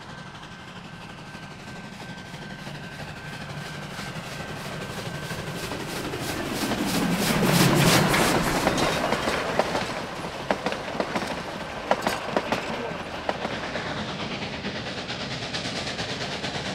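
Durango & Silverton K-36 steam locomotive No. 480 passing close by: its rumble and running gear build up and are loudest about eight seconds in, with a rapid run of clicks as the wheels go over the rail joints. After that, sharper single clicks follow as the passenger cars roll past. A steady high tone runs under it until about twelve seconds in.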